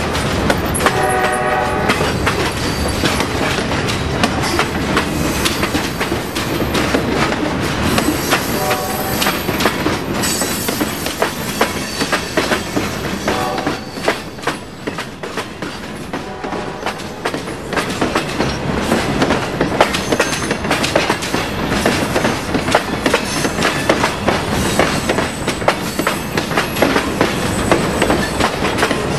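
Long freight train rolling past, its steel wheels clicking steadily over rail joints as boxcars and then covered hopper cars go by. A brief pitched tone sounds about a second in.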